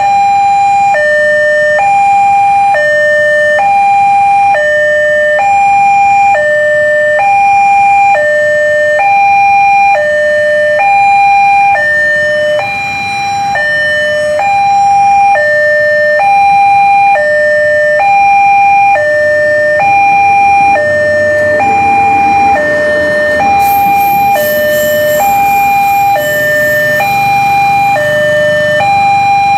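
Railway level-crossing warning alarm sounding a steady electronic two-tone signal, alternating evenly between a high and a low tone. In the second half a passing train's rumble swells underneath, and a thin high whine joins about three-quarters of the way through.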